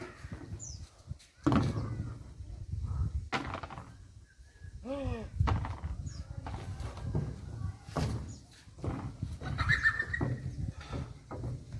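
Repeated knocks and rustling handling noise close to the microphone, with a short animal call, falling in pitch, about five seconds in.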